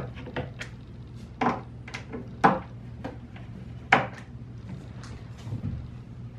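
A screwdriver working the metal adjustment screws of a cabinet door hinge to set the door's alignment. It makes a string of irregular clicks and light knocks of metal and wood, the loudest about two and a half and four seconds in.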